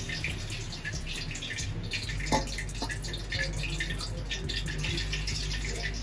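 Gram flour (besan) being mixed with water by hand in a steel plate: irregular wet squelches and small sticky clicks as the fingers squeeze the damp flour into a batter. A steady low hum runs underneath.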